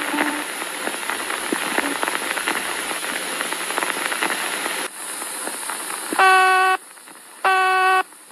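Crackling static hiss for about five seconds, then after a quieter moment a harsh buzzing emergency-alert alarm tone starts pulsing: two half-second beeps a little over a second apart.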